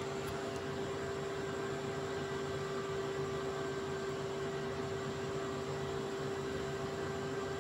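Steady background hiss with a constant hum running under it, unchanging throughout, with no distinct events.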